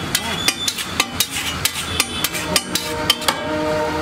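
A long flat steel spatula blade chopping egg mixture on a large flat iron griddle (tawa), striking the metal in quick sharp clinks about four times a second. The chopping stops about three and a half seconds in, and a steady hum follows.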